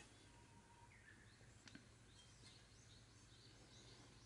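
Near silence: room tone, with one faint click a little before two seconds in and faint, quick high chirps in the second half.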